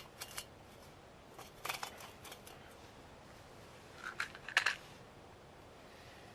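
Small metallic clicks and clinks in three short clusters, from light metal cooking gear being handled.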